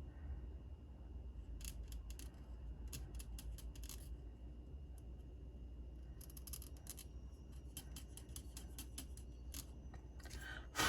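Quick, light clicks and taps in short clusters from an acrylic paint pen tip worked against a small hard ResinCrete magnet, over a faint low hum, with a louder group of clicks near the end.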